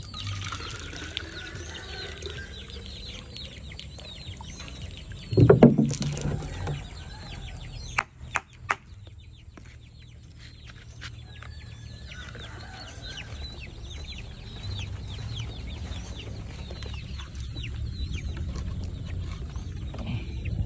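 KUB village chickens clucking and calling continually in quick, short notes. A loud knock comes about six seconds in, and a few sharp clicks come about two seconds later.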